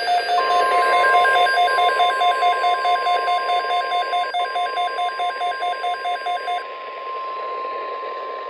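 NOAA Weather Radio's 1050 Hz warning alarm tone, one steady unbroken tone, heard through a weather radio receiver with reception hiss. Over it, a rapid electronic alert beep pulses about four times a second and stops about two-thirds of the way through, while the steady tone carries on.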